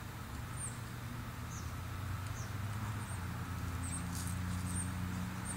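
Short, high-pitched bird chirps, repeated about once a second over a low steady rumble.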